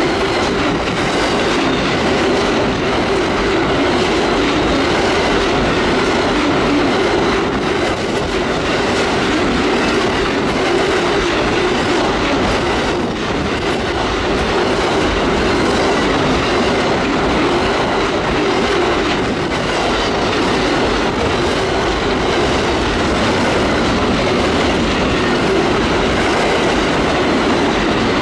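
A long train's cars rolling steadily past at speed: a continuous rush of steel wheels on rail with clickety-clack.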